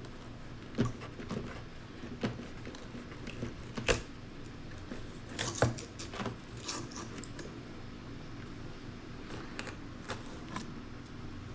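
Scattered light clicks and knocks of tools and parts being handled on a workbench, loudest about four seconds in and again a little later, over a steady low hum.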